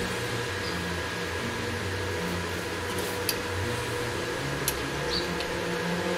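Steady fan-like machine hum, with a few faint light clicks of steel pieces being handled.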